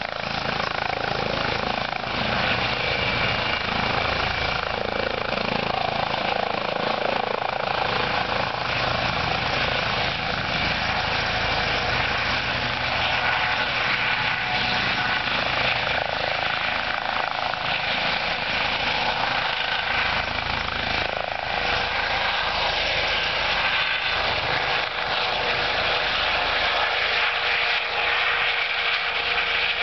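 Eurocopter EC135P2+ helicopter running at lift-off power while it hovers low and moves off: twin turboshaft engines, main rotor and Fenestron ducted tail rotor. The sound is a steady turbine whine with several held tones over the rotor noise, at an even level throughout.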